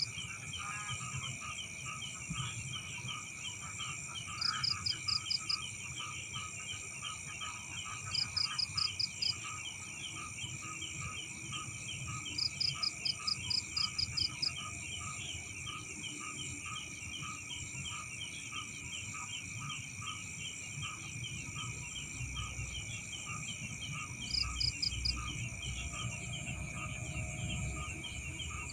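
Night chorus of crickets and other insects: several steady, shrill trills, with a lower note pulsing about twice a second. Every few seconds a short burst of rapid high pulses stands out as the loudest sound.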